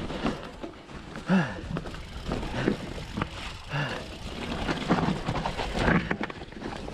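Bird Aeris 120 full-suspension mountain bike riding down a rough trail: steady wind and tyre rumble, broken by rattles and knocks from the bike over roots and rocks. The rider grunts a few times, once with a falling "oh" about a second in.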